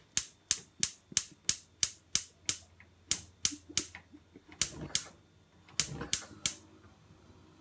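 Gas stove's push-and-turn spark igniter clicking, sharp single clicks about three a second in several runs with short pauses, while the burner is slow to catch.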